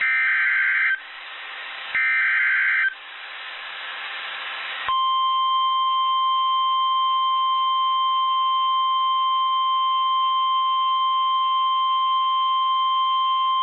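NOAA Weather Radio emergency alert: two short bursts of screechy digital SAME header data about two seconds apart, with radio static hiss between them, then about five seconds in the steady 1050 Hz warning alarm tone, held for about nine seconds. The sequence marks the start of a new severe weather warning broadcast.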